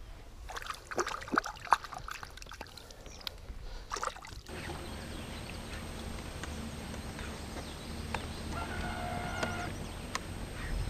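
Water splashing and trickling at the side of a boat as a hand releases a freshly caught northern pike, lasting about four seconds; then it gives way to a steady, faint background hum.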